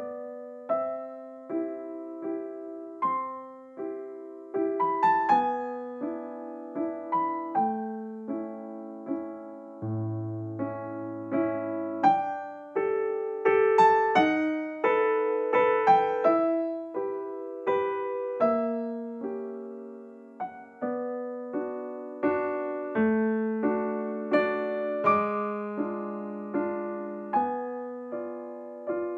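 Background piano music: a gentle melody of single struck notes that fade, over lower notes.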